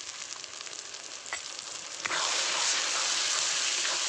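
Spice-paste masala sizzling in hot oil in a metal kadai, with the freshly added chilli and cumin powders being fried in. About two seconds in, the sizzle turns suddenly much louder as a metal spatula starts stirring the powders through.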